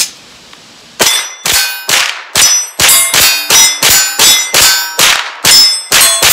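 Rapid fire from a Foxtrot Mike 9mm rifle: about fourteen shots, roughly two a second, starting about a second in. Each shot is answered by the ring of steel targets being hit.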